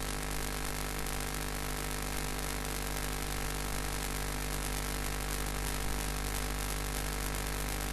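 Steady electrical hum with many even tones, under a constant hiss: the background noise of the recording, with nothing else happening.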